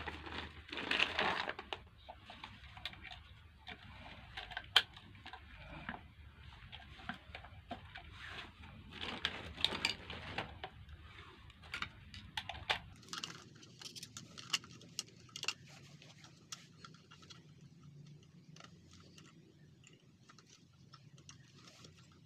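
Hands working on a plastic blender jug: scattered clicks, taps and rustling of plastic parts being handled, busier in the first half. A low background hum drops out about halfway through.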